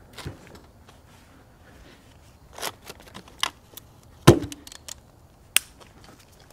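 Hand tools being handled: a few scattered sharp clicks and knocks, the loudest just past four seconds in.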